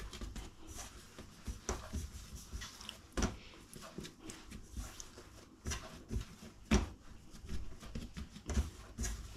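Hands pressing and folding risen bread dough on a kitchen worktop: irregular soft thumps and slaps, the loudest about three seconds in and again near seven seconds.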